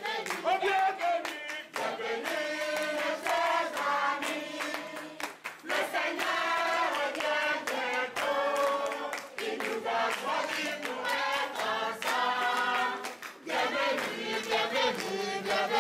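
A choir singing, several voices together, with sharp rhythmic hand clapping running through the song.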